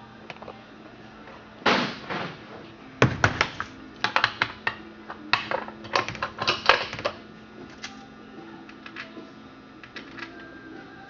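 A string of sharp clicks, knocks and rattles from a chainsaw being handled by hand, loudest in a cluster from about two to seven seconds in, then only a few light clicks.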